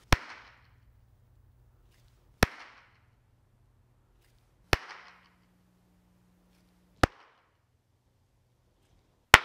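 Five single hand claps, about two and a half seconds apart, each followed by a short echo off the hard walls of a bare, reverberant garage. Successive claps are heard through different microphones in turn (Schoeps MK41, Sanken COS-11 lavalier, Rode VideoMic Pro).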